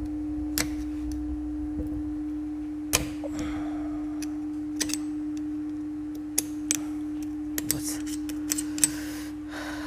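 Light metal clicks and taps as washers and pinion parts are fitted onto a motorcycle engine's kick-start shaft, over a steady hum. The clicks are scattered, with a cluster of them between about six and nine seconds in.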